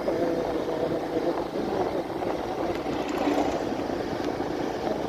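Motorcycle engine running steadily while riding, under a rush of wind noise on the microphone.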